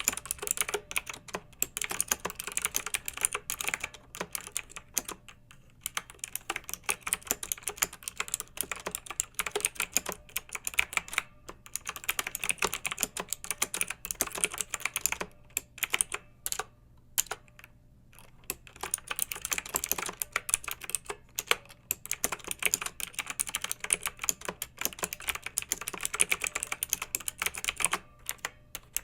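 Clicky mechanical keyboard being typed on quickly and steadily, in runs of rapid keystrokes broken by brief pauses.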